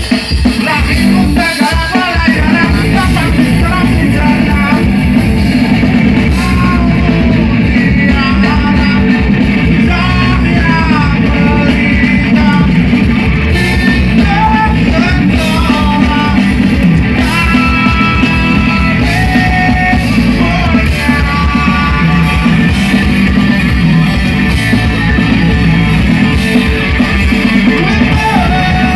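Loud rock music with a singing voice and guitar, steady beat throughout.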